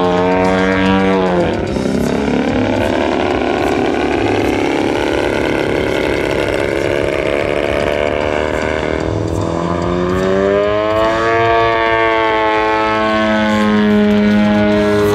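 ZDZ 180cc two-stroke petrol engine of a large radio-control aerobatic plane running in flight. Its pitch drops sharply about a second and a half in and stays lower and rougher through the middle, then climbs back to a steady drone near the end.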